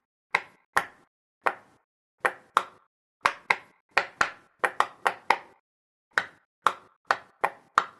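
Silicone pop-it fidget toy bubbles being pressed through one at a time, about eighteen sharp pops at an uneven pace, some in quick pairs, each dying away quickly.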